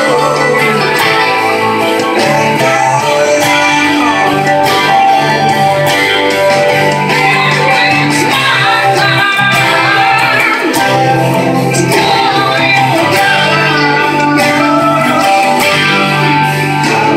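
Electric guitar played along with a recorded rock ballad, with bass and a singing voice in the mix.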